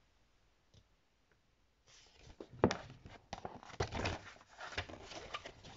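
Close handling noise: about two seconds of near quiet, then a dense run of knocks, clicks and rustles as the camera is grabbed and moved by hand, with one sharp knock about halfway through.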